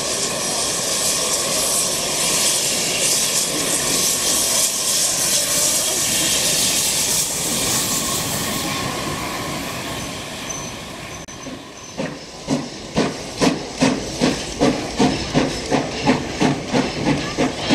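Steady hiss of escaping steam from a steam locomotive. About twelve seconds in, this gives way to the regular exhaust chuffs of a steam locomotive pulling coaches, about two and a half beats a second.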